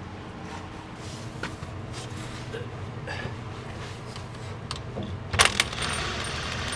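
Hand tools clinking and tapping against metal suspension parts under a car. About five and a half seconds in there is a loud metallic clank, then a couple of seconds of steady hiss.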